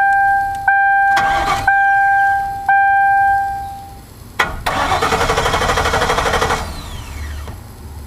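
Mercury Grand Marquis's dashboard warning chime dinging four times about a second apart, then a click and about two seconds of rapid electrical buzzing chatter with no engine cranking, on a car with a no-start, no-crank fault.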